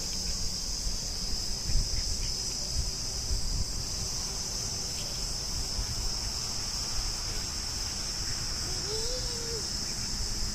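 Steady high-pitched insect chorus droning without a break, over a low rumble. A short faint rise-and-fall call sounds about nine seconds in.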